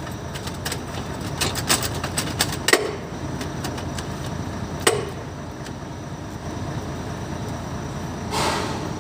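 Metal hand tools clinking and knocking during clutch pressure plate work: a run of quick clicks in the first few seconds, then two sharp single knocks, over a steady background hum.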